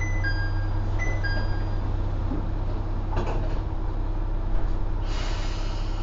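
Kanto Railway KiHa 5000 diesel railcar standing with its engine idling as a steady low drone. A two-note falling door chime sounds twice, a second apart, the sliding doors close with a clatter about three seconds in, and a hiss of air starts near the end.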